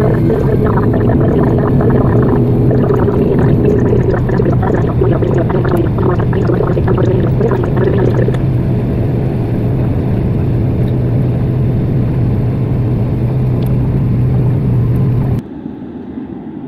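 ATR 72-500 turboprop engines and propellers heard from inside the cabin during the landing roll: a loud, steady propeller drone whose higher tones ease off about halfway through as the aircraft slows. About a second before the end it cuts to a much quieter outdoor scene.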